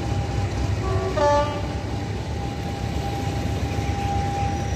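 Class 50 diesel locomotive pulling away under power, its English Electric 16-cylinder engine running with a low rumble and a steady whine over it. About a second in, a short two-tone horn blast sounds, the loudest moment.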